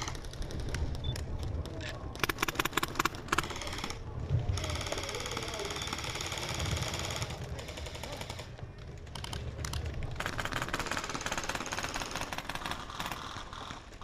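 Airsoft guns firing in rapid bursts of sharp clicking shots, the densest run about two to three and a half seconds in.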